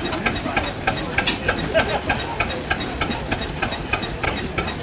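Single-cylinder Deutz stationary diesel engine running slowly with a regular diesel knock, about four to five beats a second, over a low rumble.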